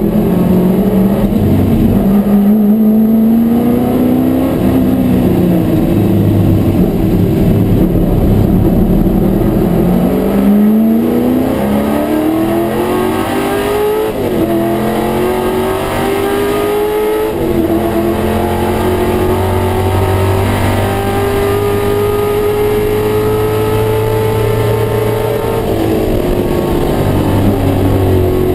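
Race car engine heard from inside the cabin, rising in pitch under hard acceleration and dropping sharply at several upshifts. This is followed by a long, slowly rising pull that eases off near the end.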